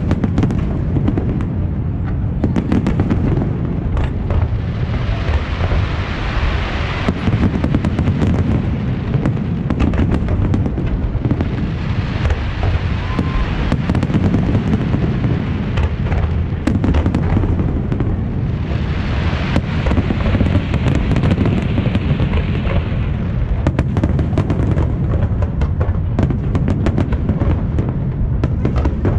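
Fireworks display: a continuous barrage of aerial shell bursts, a steady booming rumble packed with sharp bangs, with three stretches of dense crackling over it.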